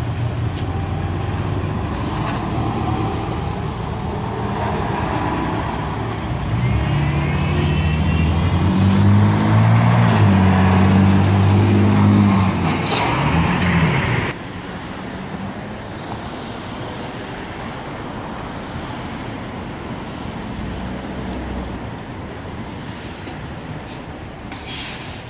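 Diesel city bus engine pulling away, its note building and shifting, then cutting off suddenly about fourteen seconds in. After that comes steady street traffic, with a short burst of hiss near the end.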